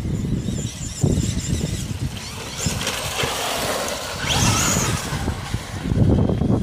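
Electric motors of Traxxas Slash 4x4 RC short-course trucks whining as they accelerate and spin their tyres, with a sharply rising whine about four seconds in. Wind buffets the microphone before and after.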